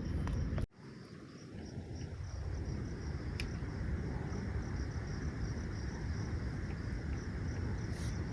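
Outdoor forest ambience: insects chirring steadily in a high band over a low, even rumble, with a brief dropout about a second in.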